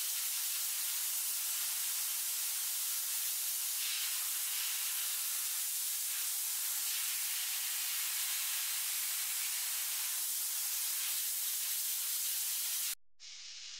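A steady, even hiss, strongest in the high range, with no rhythm or tone; it cuts off suddenly near the end.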